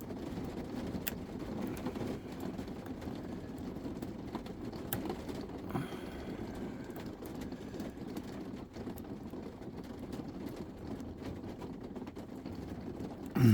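Steady low rumble in the background, with a few faint clicks from lock picks working the pins of a lock.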